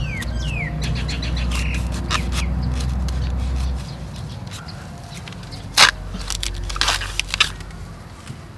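Knife blade chopping into soil and the base of a bamboo shoot: a run of sharp knocks, the loudest about six and seven seconds in. A bird chirps a few falling notes near the start.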